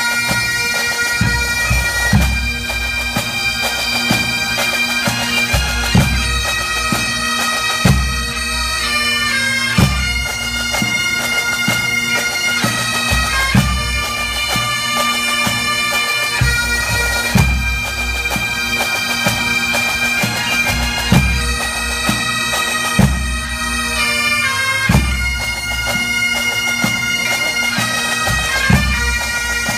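Pipe band playing: Great Highland bagpipes sound a melody over their constant drones, while snare, tenor and bass drums keep a regular beat.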